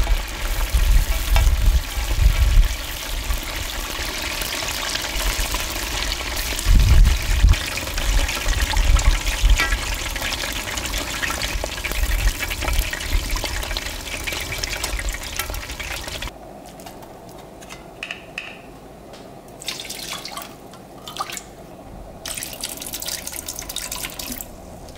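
Battered chicken deep-frying in a large pot of hot oil: a dense, steady sizzle, with low rumbles now and then. About two-thirds of the way through the sizzle cuts off abruptly, and quieter, scattered sounds follow while sauce ingredients go into a wok.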